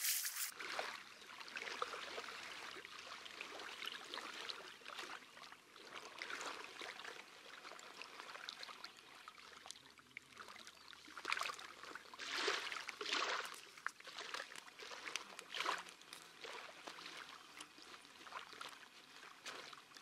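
Water splashing and lapping at the river's edge, with a few louder splashes past the middle.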